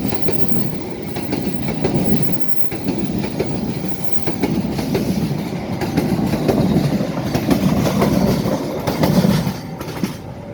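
A train passing by on the tracks, its carriages and wheels clattering steadily over the rails, easing off near the end.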